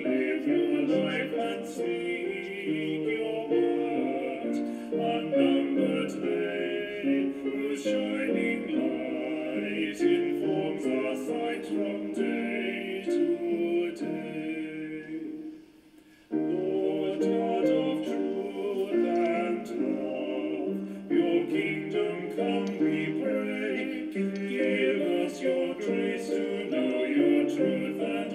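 A hymn sung with instrumental accompaniment. It breaks off for a moment about halfway through, then starts again.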